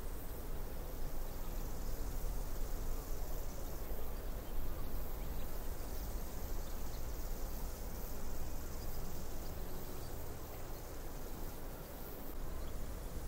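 Ocean surf breaking and washing onto the beach as a steady wash of noise, with wind rumbling on the microphone.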